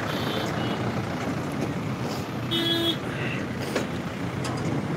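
Steady outdoor background noise with two short, high-pitched toots, one right at the start and one about two and a half seconds in.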